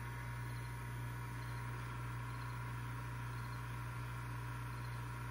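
Steady low electrical hum with a faint high whine, and a faint blip that repeats about once a second.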